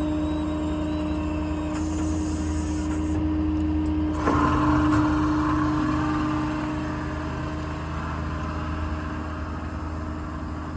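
Service truck's 6.7 Power Stroke diesel running steadily with a steady hum, while the IMT crane's hydraulics are worked. A rushing hiss swells about four seconds in and then fades.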